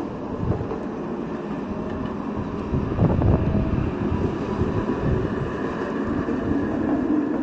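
TMK 201 tram, two cars coupled, running along its street track: a steady running noise that swells briefly about three seconds in.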